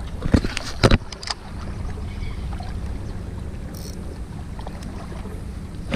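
Steady low wind rumble on a body-worn camera's microphone, with a few sharp clicks and knocks in the first second from handling the fishing rod and reel.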